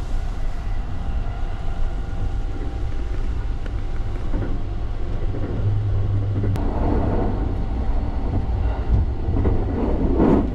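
Sunrise Seto sleeper train running, heard from inside a compartment: a steady low rumble of the running gear on the rails, a little louder in the second half, with a faint click about two thirds of the way through.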